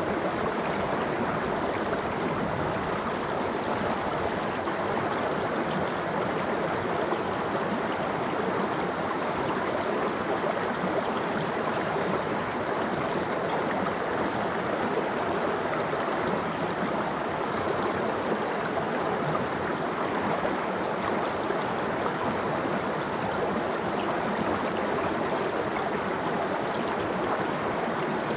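Valley stream water flowing steadily, an even, unbroken rush of running water.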